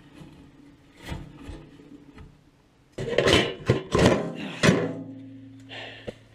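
A locked container being forced open: a faint knock, then a run of loud knocks and creaks about three seconds in as the lid comes open, followed by a low steady hum.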